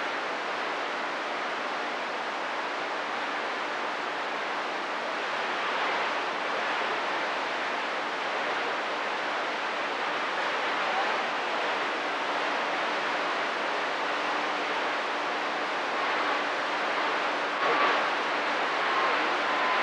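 Radio receiver hiss: steady band static from an open sideband channel with nobody transmitting, with a faint steady tone and a few brief faint whistles near the end.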